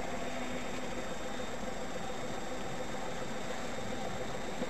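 Steady vehicle engine hum with an even hiss, unchanging throughout.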